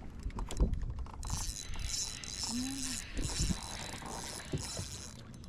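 Fishing reel clicking in rapid, dense ticks as a bass on the line is reeled in.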